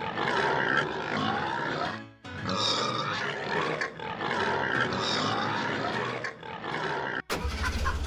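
Pigs grunting over background music, in stretches broken by short gaps, cut off abruptly near the end.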